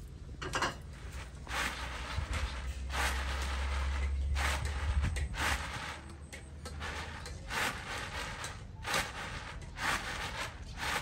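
Rice grains swishing and rattling in a round woven winnowing tray as it is shaken and tossed, in short rhythmic swishes about once a second.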